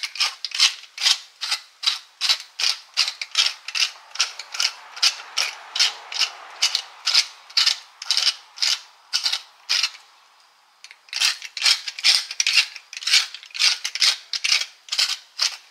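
Hand-twisted pepper mill cracking black peppercorns: a steady run of short ratcheting grinds, about two to three a second. The grinding pauses for about a second around ten seconds in, then starts again.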